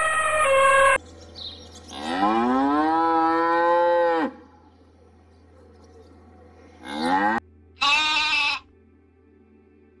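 The tail of an elephant's trumpet call cuts off about a second in. Then a cow gives a long moo of about two seconds, rising at first and then held. Near the end come two short, higher-pitched calls.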